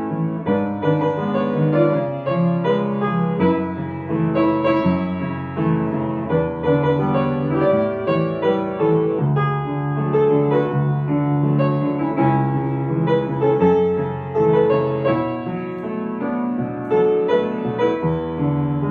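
Piano music: a melody played over sustained chords, at a steady moderate level.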